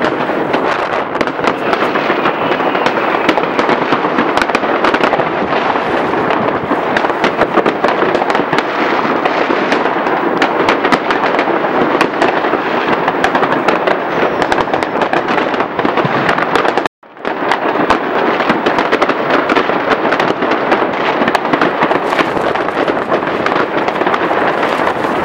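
Many fireworks and firecrackers going off at once, a dense unbroken crackle of overlapping pops and bangs. The sound cuts out for a split second about two-thirds of the way through.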